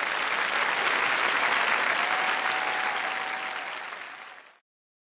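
Studio audience applauding loudly after a performance ends; the applause cuts off suddenly near the end.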